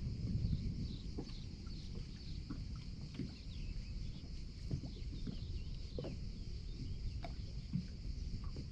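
Small waves lapping and slapping against a boat hull in irregular little clucks, over a low rumble of wind on the water.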